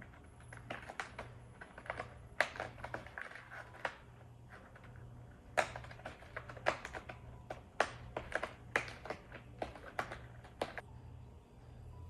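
Cat clawing at a corrugated cardboard scratcher bowl: quick irregular scratching strokes in bursts, stopping shortly before the end.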